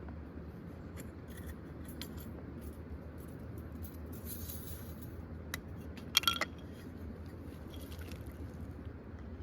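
Scattered small clicks and one sharp ringing clink of metal or glass about six seconds in, over a steady low rumble.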